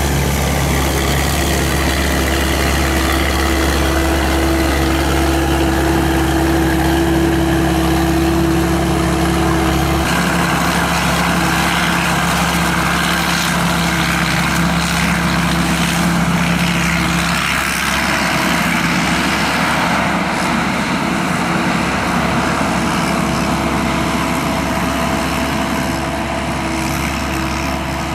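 SAK KM-D combine harvester with a 260 hp turbo diesel engine, running steadily with its machinery going. The hum changes pitch about ten seconds in and again a little past halfway.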